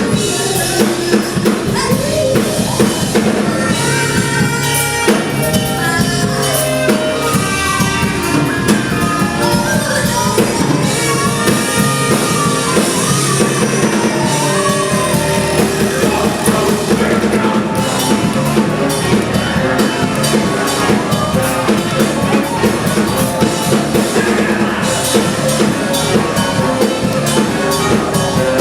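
Music with a steady drum kit beat and singing.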